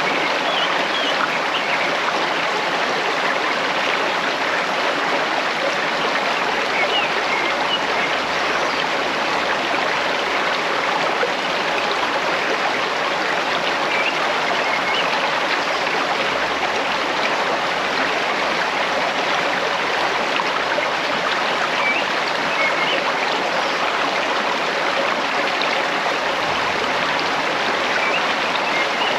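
Flowing stream water, a steady even rush with no change throughout.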